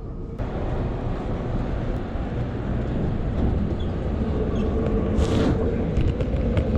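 Steady low rumble of vehicle traffic or a metro train, growing louder, with a faint steady hum coming in about four seconds in.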